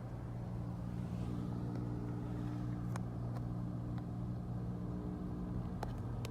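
An engine running steadily with a low even hum, with a few faint clicks in the second half.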